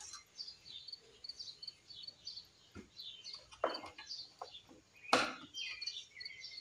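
Small birds chirping steadily in the background. There are a few light handling clicks and a sharper plastic knock about five seconds in, as the mower engine's oil dipstick is pulled out of its fill tube.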